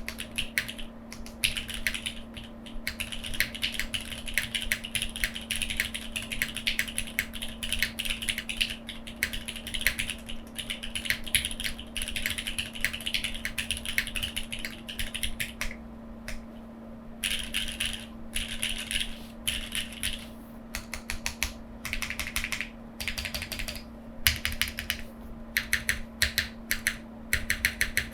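Mechanical keyboard with Cherry MX2A Black linear switches, GJ Japan keycaps and no foam, typed on in a fast, continuous run of keystrokes, then, after a brief pause about sixteen seconds in, in short separate bursts. A steady low hum runs underneath.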